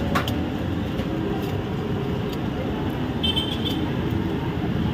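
Steady traffic noise and street bustle, with a short clink just after the start.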